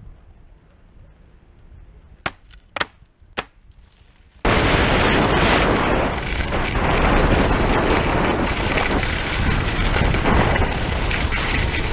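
A quiet stretch with three sharp clicks, then, starting abruptly about four and a half seconds in, the loud steady rush of skis running over soft spring snow, with wind on the microphone.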